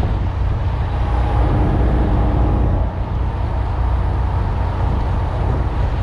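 Boat's Detroit 60 Series diesel engine running steadily underway, a low drone, with water rushing along the aluminium hull.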